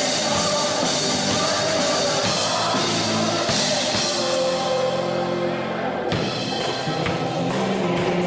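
Live rock band playing, with a drum kit and guitars, and possibly a singer. Just before six seconds in, the cymbals drop away for a moment, then the drums come back in with steady, evenly spaced hits.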